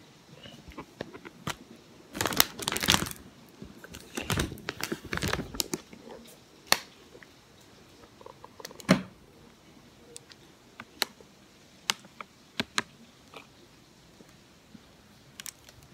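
Snack packaging crinkling and rustling in two bursts as a chip bag and a cookie box are handled, followed by scattered light clicks and knocks.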